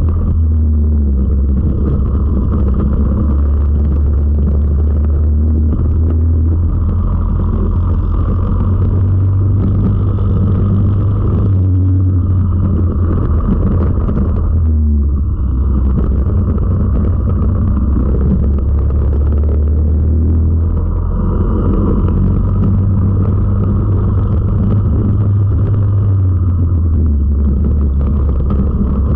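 Four-stroke racing kart engine at race speed, heard close from a camera mounted on the kart. The engine note rises and falls through the laps and eases briefly about halfway through.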